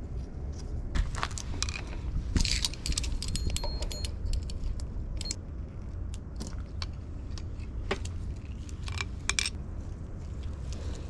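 Small metal objects clinking and rattling: scattered sharp clinks, some with a brief metallic ring, over a steady low rumble.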